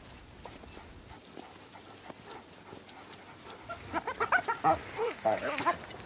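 Cheetahs chirping: a quick run of short, bird-like calls starting about four seconds in, the contact call between a mother and her cubs.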